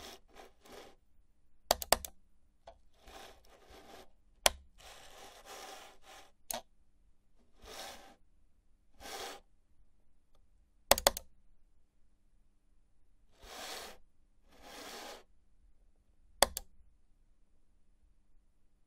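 Computer mouse being clicked and slid across a desk: sharp button clicks, some in quick doubles, between short rubbing sounds of the mouse moving over the desk surface.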